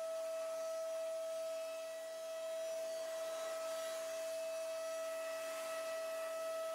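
CNC milling machine cutting metal: a steady high whine from the spindle and cutter over a faint hiss.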